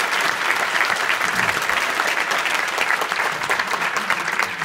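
Audience applauding in a large hall: many people clapping in a dense, steady patter.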